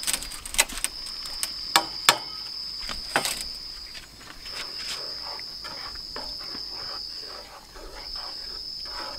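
Insects trilling steadily at one high pitch. Over the trilling come several sharp knocks and clicks in the first three seconds or so, then softer scraping, from a plastic spatula working in a non-stick frying pan as freshwater prawns are added and stirred.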